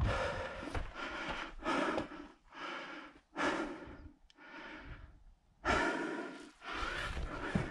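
A hiker breathing heavily close to the microphone, a breath roughly every second, with a brief pause about five seconds in.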